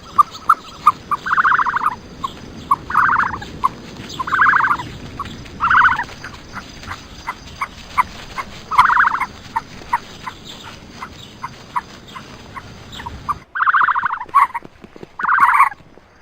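A bird calling over and over: loud rattling calls about every second and a half, with short single notes between them.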